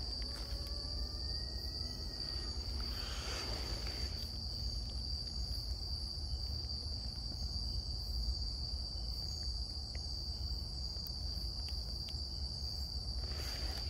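Night insects keep up a steady, high-pitched drone. In the first two seconds a faint, drawn-out gliding cry rises under it, and about three seconds in there is a brief rustle.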